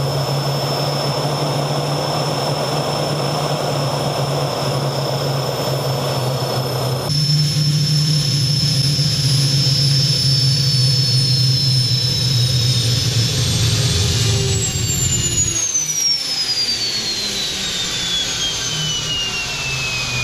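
Homemade small turbojet engine running on hawthorn tincture, a steady high turbine whine over a low drone. About three-quarters of the way through the drone drops away and the whine falls steadily as the engine spools down.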